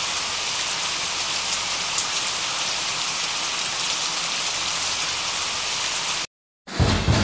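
A steady, rain-like hiss that cuts off suddenly about six seconds in. After a brief silence, music starts near the end with heavy, low drum hits.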